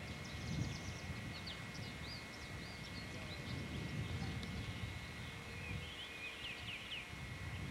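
Small birds chirping in many short, quick calls over a steady low rumble.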